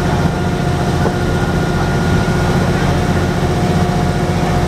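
River cruise boat's engine running, a steady low drone with a constant hum above it.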